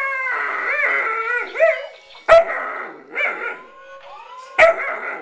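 Alaskan Malamute puppy howling in wavering calls that rise and fall. Two short, sharp barks cut in, the loudest sounds, about two and four and a half seconds in.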